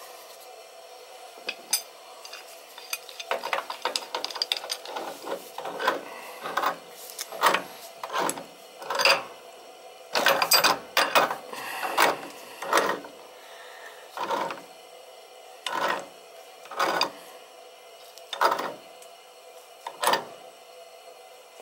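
Pipe wrench turning a threaded gas pipe fitting at a water heater's gas control valve: the ratcheting clicks and creaks of the wrench jaws and doped pipe threads. The strokes become regular, about one a second, in the second half.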